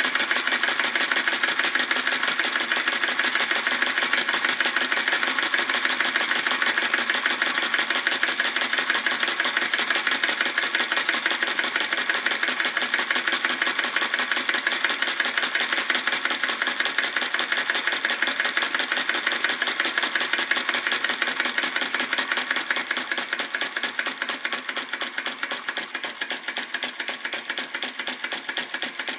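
Retrol VE-01 crossbeam vacuum engine (flame licker) running fast, its valve gear and linkage giving a rapid, even clatter of ticks. It gets a little quieter over the last several seconds.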